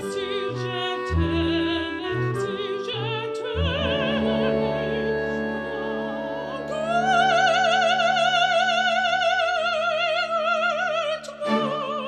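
Background music: an operatic soprano voice singing with strong vibrato over sustained instrumental accompaniment. About seven seconds in it rises to a long high note held almost to the end.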